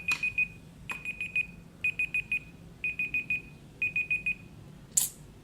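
Timer alarm going off at the end of a countdown: groups of four quick high beeps, one group each second, five times over. A sharp click comes about five seconds in.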